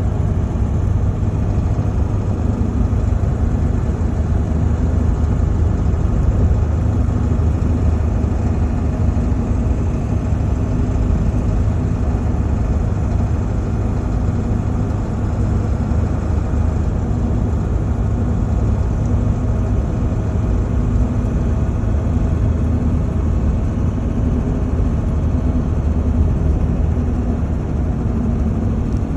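A 7.3 engine pulling a vehicle at cruise, with steady road and engine rumble and a knock under throttle that the owner puts down to the injectors or the exhaust, not a mechanical fault.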